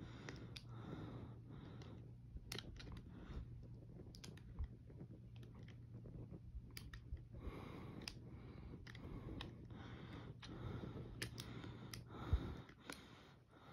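Handling noise from working at toy packaging: scattered light clicks and taps over a steady low hum, with one louder thump near the end.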